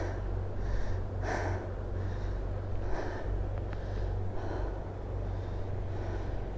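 A man panting heavily, out of breath from a steep climb, a breath about every three quarters of a second, over a low steady rumble.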